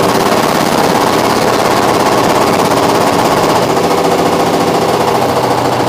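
Bobcat's hydraulic breaker hammering concrete: a rapid, steady stream of chisel blows.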